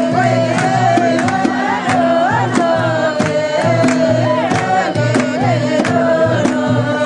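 Nepali salaijo folk song: a man sings a long, ornamented melody into a microphone over a steady hand-drum beat of about two strokes a second.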